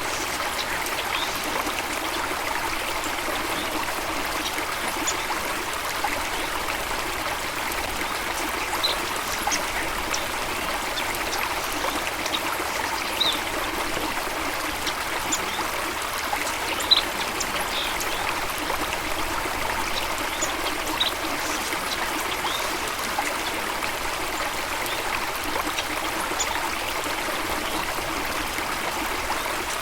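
Running water of a stream, a steady rushing and trickling, with a few brief high-pitched ticks now and then.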